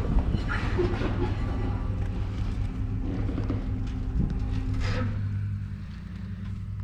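A car's engine running steadily at low speed while towing, with a single sharp knock about five seconds in.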